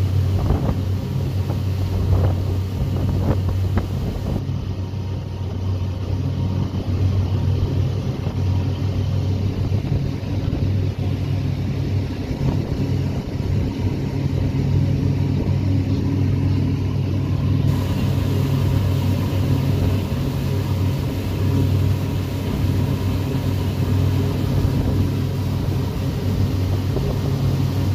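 A ferry's engine running steadily with a low drone while underway, with the wake's water rushing along the hull.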